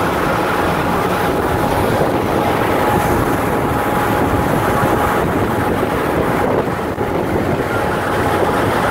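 A 1984 Scorpion 210 ski boat running steadily at cruising speed on its 350 MerCruiser V8 engine, mixed with the rush of the churning wake.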